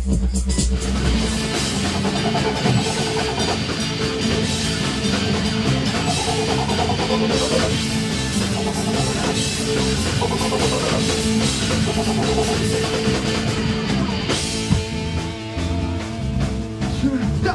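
Rock band playing an instrumental passage, with a driving drum kit and guitars.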